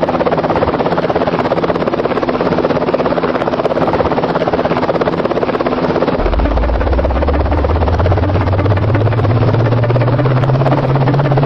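A loud, steady machine engine or motor running with a fast, even pulse. About halfway through a deep hum comes in and rises steadily in pitch until the sound cuts off abruptly.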